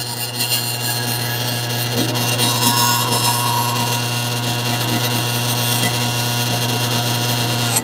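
Electric dough-kneading machine running steadily with a constant motor hum as it works a batch of pasta dough, then switched off right at the end.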